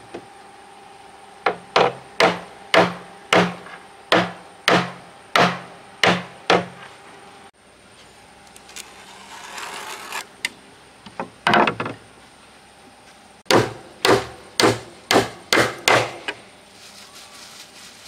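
Hammer blows on wood. A run of about ten evenly spaced strikes is followed by a few seconds of scraping and one more knock, then a quicker run of about eight strikes.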